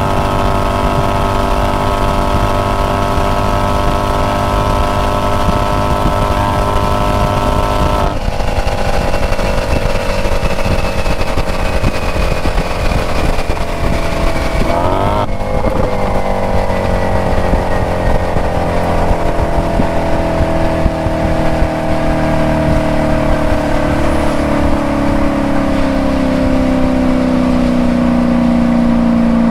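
Maserati Quattroporte Sport GTS's 4.7-litre V8 and its stock active exhaust running at speed. The pitch holds steady, breaks off about a third of the way in, then sinks slowly, with a brief quick rise in pitch about halfway through.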